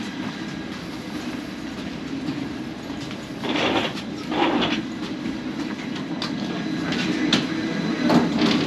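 Steady low rumble of a jet bridge during boarding, with footsteps, knocks and rattles. Two short rushing noises come about three and four and a half seconds in.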